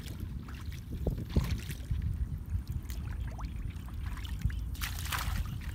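Hands sloshing and splashing through shallow muddy water while groping for crabs along the bottom, with a louder splash about five seconds in, over a steady low rumble.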